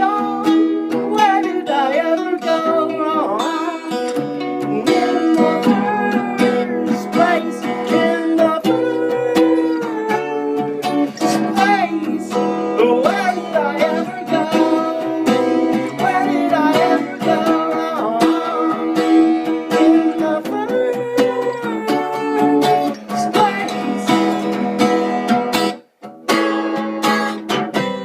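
Acoustic guitar music: strummed chords under a bending melody line, with no words sung. The music breaks off briefly near the end and then goes on.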